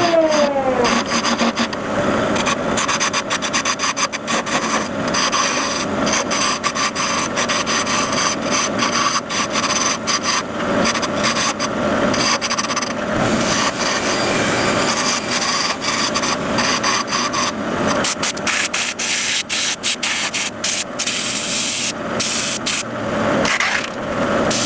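Wood lathe spinning a dense ipe handle blank while a tool scrapes against the turning wood, a continuous rough rasping. In the first second a machine's pitched hum winds down in pitch.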